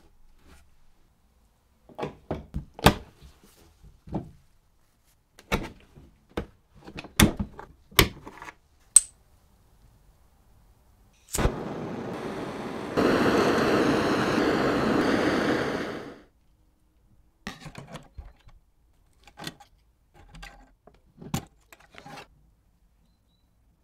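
Sharp clicks and knocks of hands and tools working on a wooden case. Then a handheld butane torch clicks alight and hisses steadily, louder after a second or so, for about four and a half seconds before it cuts off. Faint clicks and scrapes follow as pliers work a metal fitting on the case.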